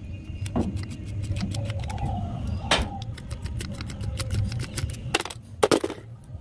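Small clicks and taps of a screwdriver and fingers working on a contactor's terminal screws and plastic housing, with a few sharper clicks, the loudest two about five seconds in.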